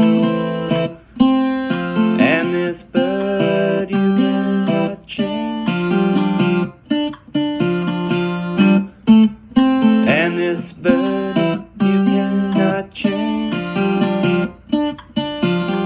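Acoustic guitar playing a melody over plucked chords in short phrases, with a note sliding upward about two seconds in and again about ten seconds in.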